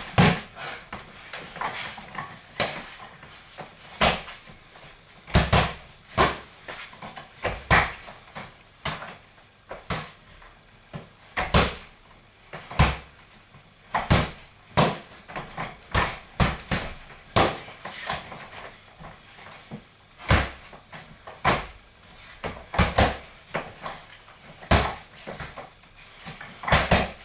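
Gloved punches smacking into handheld punch mitts: sharp smacks, some single and some in quick pairs, about one every second or so.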